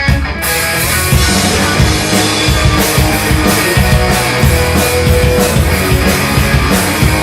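Rock band playing, with drum kit and guitar; the drums and cymbals come in fully about half a second in.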